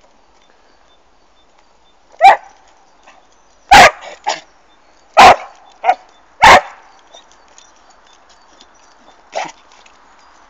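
A dog barking excitedly while playing, about seven short sharp barks at uneven intervals over several seconds, the loudest close enough to clip.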